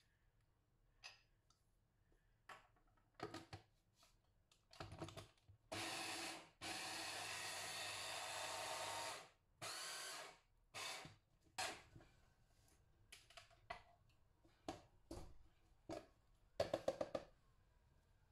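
A small electric blender chopping chickpeas into hummus paste. It runs in short pulses and one longer run of about three seconds, ending in a quick cluster of pulses.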